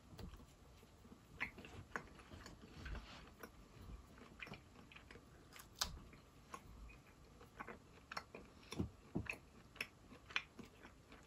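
A person biting and chewing home-dried chicken jerky coated with sesame seeds: faint, irregular crunches and mouth clicks.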